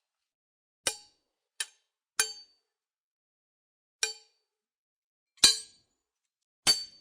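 Sword sound effect: six sharp metallic blade clinks, each with a short ring, at uneven intervals. The second-to-last is the loudest.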